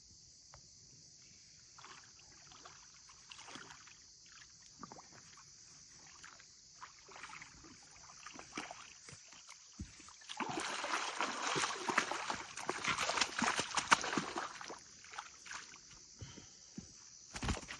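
Water splashing and sloshing in irregular bursts, heaviest for about four seconds in the second half, over a steady high chirring of insects.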